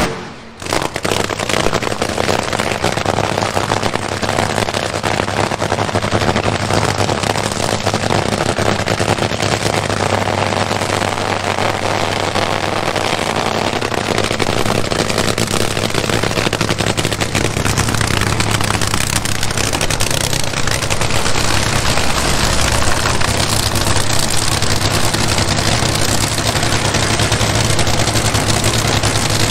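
Nitro-burning, supercharged V8 drag-racing engine running steadily at constant speed: a loud, dense noise over a steady low hum. It drops out for a moment right at the start.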